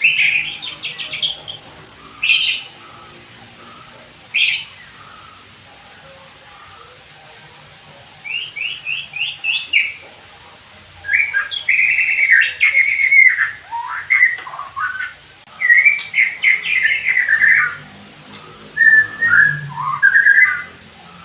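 White-rumped shama (murai batu) singing: about six loud bursts of varied whistled phrases and rapid, quick-changing notes, with pauses of a second or more between them.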